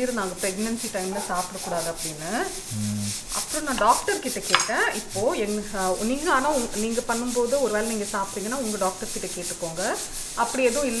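A woman talking over a steady rubbing, scraping noise.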